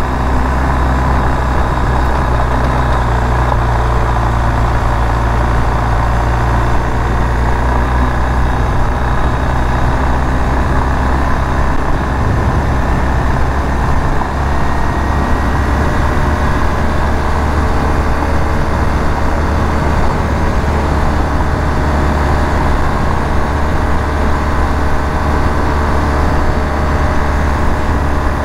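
Motorcycle running steadily while riding a dirt road, its engine hum mixed with wind and tyre-on-gravel noise.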